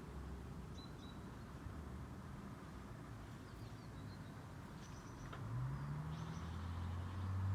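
A few short, faint bird chirps over a low outdoor rumble. About five and a half seconds in, a low engine hum comes in, rises in pitch and then holds steady, louder than the birds.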